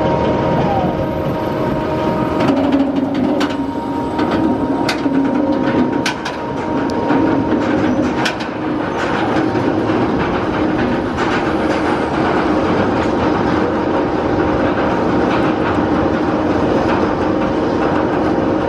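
B&M steel roller coaster train climbing its chain lift hill: a steady mechanical hum from the lift drive and chain, with a run of sharp clicks through the first half of the climb.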